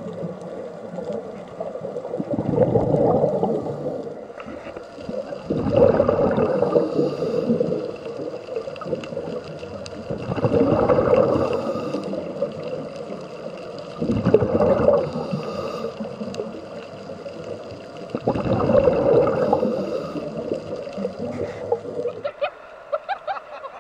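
Scuba regulator breathing heard underwater: five rushing, bubbling exhalations about every four seconds, with quieter sound between breaths.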